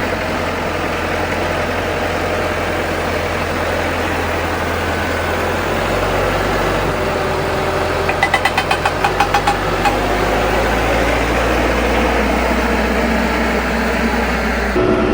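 Vehicle engine and road noise heard from inside the cab while driving, a steady low rumble. About eight seconds in, a quick run of short beeps, some six a second, lasts under two seconds.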